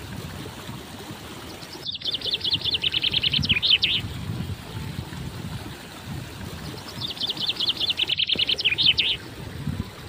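A small songbird singing two phrases, each a fast run of high notes lasting about two seconds and ending in a few falling notes. The first starts about two seconds in and the second about seven seconds in.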